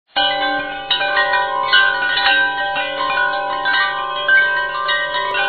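Chiming, bell-like tones: many notes struck one after another, ringing on and overlapping.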